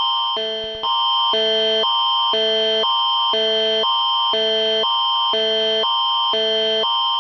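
Canadian emergency alert attention signal: an electronic alarm of two tone chords alternating about twice a second over a steady high tone. It fades briefly and restarts just under a second in.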